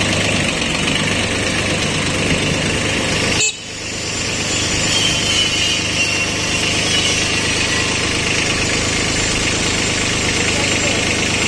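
Kubota B1400 tractor's small two-cylinder diesel engine running steadily at the exhaust, its engine replaced to cure blow-by. The sound briefly drops out about three and a half seconds in, then comes back.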